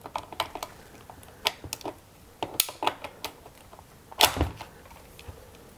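Irregular sharp metal clicks and clacks of locking pliers being set and clamped on the stub of a broken muffler screw in a Stihl MS291 chainsaw cylinder, the loudest about four seconds in. The jaws are not getting a bite on the screw.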